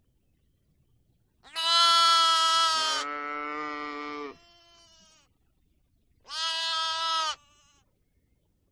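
Two bleats from livestock. The first is long, about three seconds, and drops to a lower pitch partway through. The second is shorter, about a second, and comes two seconds later.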